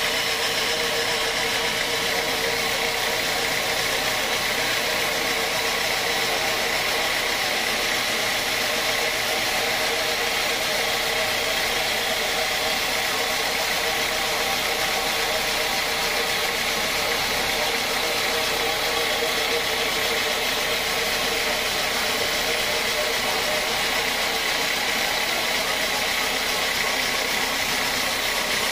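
Band sawmill running steadily, its blade sawing through a large log, a continuous machine drone with a high steady tone.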